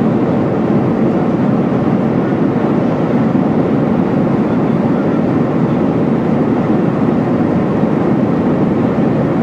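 Steady cabin roar of a Boeing 737-900ER in flight, the mixed noise of its CFM56 turbofan engines and the airflow over the fuselage, heard from a window seat over the wing. It is an even, deep rush with no changes.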